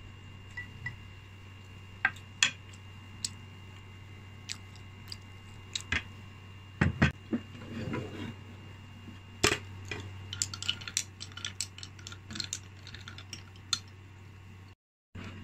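Wooden chopsticks and a wooden spoon clicking and scraping against a ceramic bowl and plate while eating. The scattered taps come thicker in the second half, with a couple of heavier knocks about halfway through, over a steady low hum.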